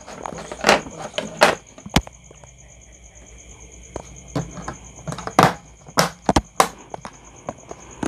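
Hard plastic clicks and knocks as a switch-and-outlet combination device is handled and fitted onto an orange plastic utility box, with its wires shifting. The knocks come singly, spread out, about eight in all, the loudest a little past halfway.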